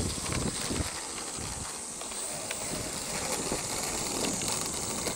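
Electric RC aerobatic plane taxiing on asphalt, its brushless motor and propeller turning at low throttle, over a steady high-pitched insect buzz.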